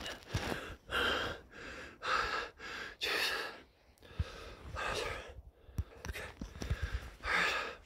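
A man's heavy, panting breaths close to a phone microphone, rapid at first and slowing after about three seconds. He is winded from excitement and high elevation.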